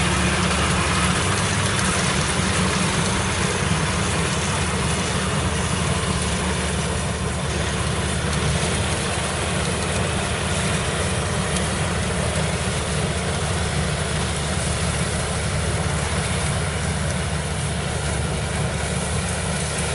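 Kubota DC-95GM rice combine harvester running steadily under load while cutting and threshing ripe rice: an even diesel-engine drone mixed with the constant rushing clatter of the cutter and threshing drum.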